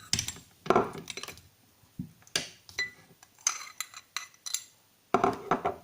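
A table knife clinking and scraping against a dish in a series of short, sharp strokes as butter is taken up and spread on a slice of bread.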